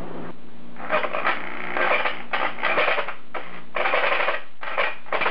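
Jigsaw cutting 304 stainless steel sheet in short stop-start bursts, starting about a second in. The cut is hard going in this tough stainless.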